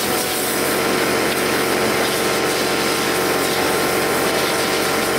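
Compressed air hissing steadily from an air-compressor blowgun as dust and debris are blown out of a tractor's engine compartment.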